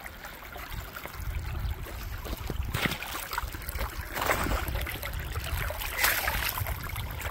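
Shallow stream trickling over rocks as someone steps across it, with three sharp footsteps about three, four and six seconds in, over a low rumble.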